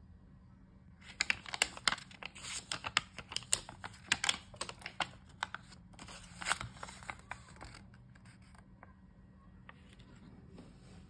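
A paper banknote, a Bulgarian 5-leva note, rustling and crackling as hands flex it and turn it over. A dense run of crisp crackles starts about a second in and stops at about eight seconds, with a few faint ones near the end.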